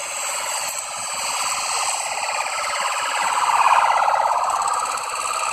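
Police car siren wailing, its pitch sweeping up and down with a fast warble, swelling to its loudest nearly four seconds in.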